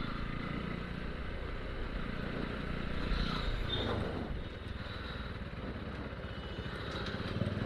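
Single-cylinder engine of a modified Bajaj Pulsar NS200 motorcycle running steadily while being ridden, swelling slightly about three seconds in. Its clutch plates are burnt out, which the rider says stops the bike going above 49.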